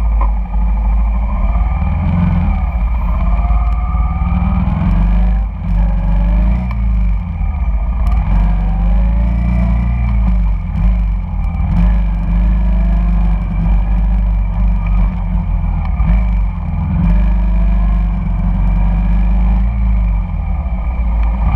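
Honda Shadow cruiser's V-twin engine running in a steady low rumble under way in traffic. Over it, the engines of surrounding motor scooters rise and fall in pitch as they speed up and slow down.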